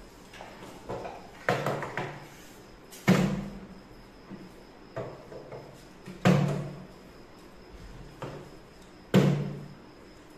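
Small plastic water bottle flipped repeatedly and landing on a wooden tabletop with sharp knocks: four loud landings about three seconds apart, with fainter knocks and clatters between.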